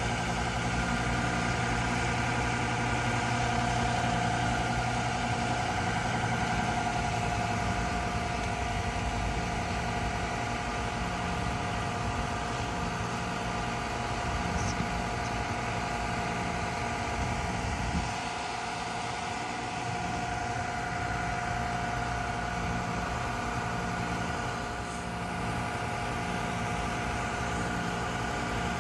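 Two Carrier Comfort Series heat pump outdoor units running during a defrost cycle, their compressors humming steadily with several steady tones over a low rumble. About eighteen seconds in there is a brief knock, and the low rumble thins after it.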